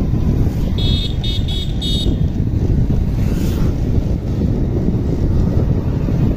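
Wind buffeting the microphone on a moving motorcycle, over a steady rumble of engine and road noise. About a second in come four short, high-pitched beeps.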